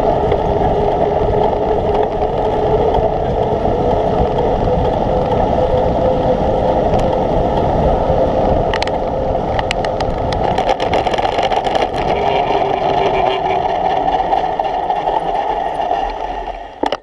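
Steady rush of wind and road noise on a bicycle-mounted camera riding fast on pavement, with a constant hum underneath. A few sharp rattles come about halfway through, and the noise falls away just before the end.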